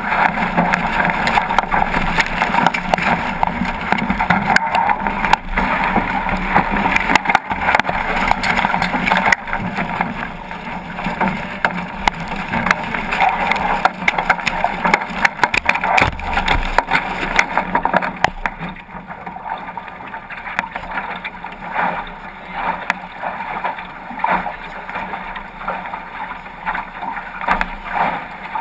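Water rushing and splashing along the hull of a 505 racing dinghy sailing fast through chop, with many small knocks mixed in. The rush eases about two-thirds of the way through.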